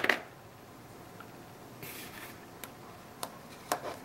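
Handling noise of a screw-on lens filter and its adapter on a compact camera: a sharp click at the start, a short rub of metal threads about two seconds in, and a few light clicks near the end.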